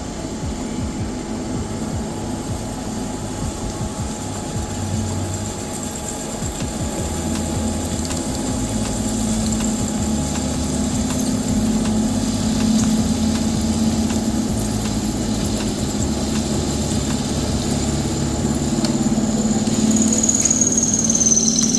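V-belt, back-gear driven drilling machine running under stepper-motor auto-feed, its spindle drilling a 16 mm hole into 25 mm thick mild steel bar. It is a steady machine hum that grows somewhat louder about a third of the way in, with a high whine sliding down in pitch near the end.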